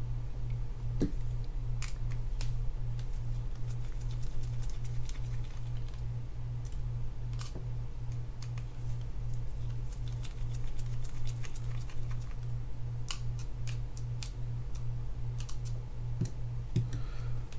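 Scattered small clicks and taps of a screwdriver working screws and small metal parts out of a Penn Spinfisher VI 7500 spinning reel. Under them runs a steady low hum that pulses about twice a second.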